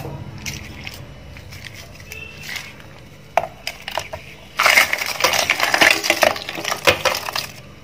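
Large chunks of ice tipped into a stainless steel mixer-grinder jar of orange segments, clattering against the steel and each other in a dense run of clinks and knocks from about four and a half seconds in until near the end. A few lighter clinks come before it.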